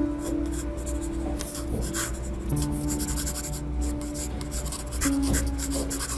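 Graphite pencil sketching on paper: a run of quick, scratchy strokes, over background music with long held notes.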